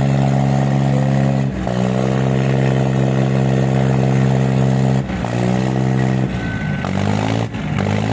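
Diesel tractor engine running flat out under heavy load in a tractor tug-of-war, its note steady with brief dips about a second and a half and five seconds in. From about six seconds in, the engine note sags and wavers as the engine labours.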